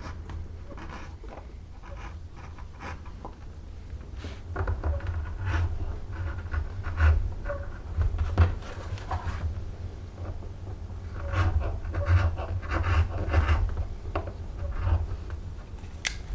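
Hand tool rubbing and scraping on leather in irregular strokes, in two runs of several seconds each.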